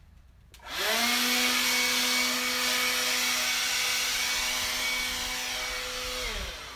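Handheld leaf blower switched on about half a second in. Its motor spins up to a steady whine over a rush of air, then winds down near the end as it is switched off.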